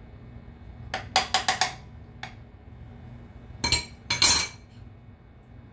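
A spoon clinking against glass dishes. There is a quick run of about six taps about a second in, then a single tap, then two louder clinks that ring briefly.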